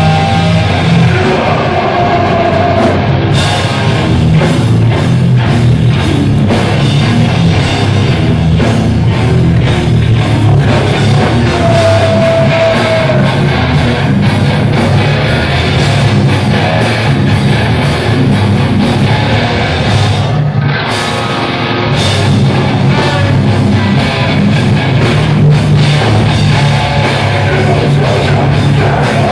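Live hardcore metal band playing loud: two distorted electric guitars, bass guitar and drum kit in a dense, driving wall of sound. About twenty seconds in the sound briefly thins out before the full band comes back in.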